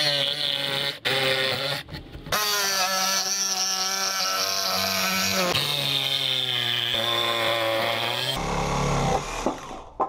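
Jigsaw cutting a circle out of a plywood panel: the motor runs steadily, stops briefly about one and two seconds in, then cuts on until it stops about eight seconds in.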